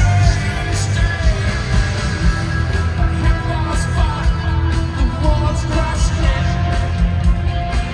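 Live rock band playing at full volume, with drums keeping a steady beat under bass, guitars and keyboards, and a singing voice over them, heard from the audience in an arena.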